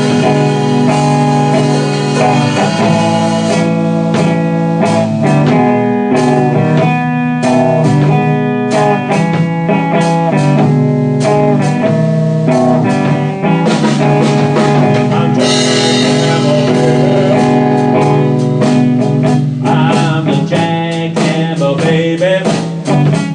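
A slow blues played live on guitar, an instrumental stretch between sung lines.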